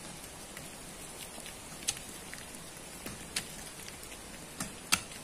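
Picks and shovels striking gravelly sand and stones while two men dig into the base of a sand bank: scattered sharp clicks and knocks at irregular intervals, the loudest just before the end, over a steady hiss.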